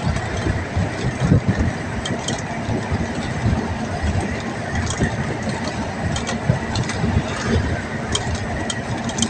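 Ride noise from inside a moving vehicle crossing a bridge: a steady low rumble with scattered light clicks and rattles.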